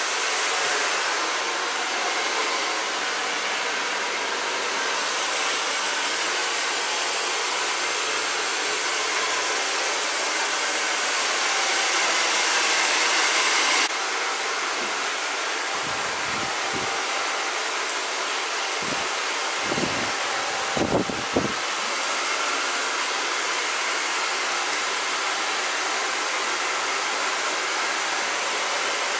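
Handheld hair dryer blowing steadily while drying hair, an even rushing hiss whose tone shifts suddenly about halfway through. A few short, low thumps come a little past the middle.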